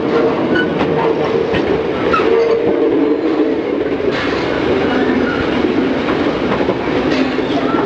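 Train of heritage carriages rolling along the track, heard from aboard: a steady rumble of wheels on rail, with scattered clicks and rattles.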